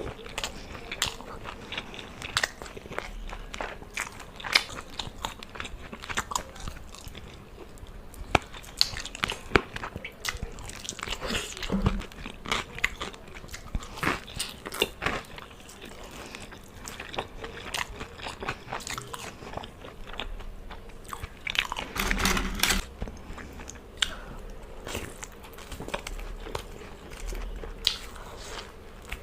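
Close-miked eating: chewing and biting into food, with many irregular small clicks of the mouth. Briefly louder about two-thirds of the way through.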